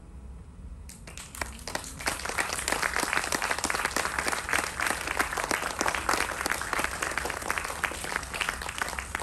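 Audience applauding. Clapping starts about a second in, quickly swells into dense, steady applause and keeps going.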